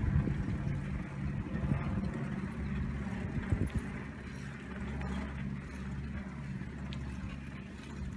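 Low, steady rumble of wind buffeting the microphone, mixed with the rolling noise of a bicycle on a paved trail.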